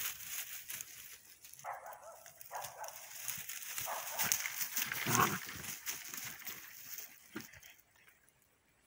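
Borador (Border Collie × Labrador) puppies making play noises as they tussle, over a rustle of dry leaves and twigs under their paws. The loudest call comes about five seconds in, and it quietens near the end.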